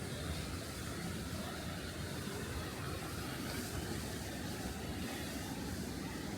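Steady rushing roar of falling water from a large waterfall, heaviest in the low end and unchanging throughout.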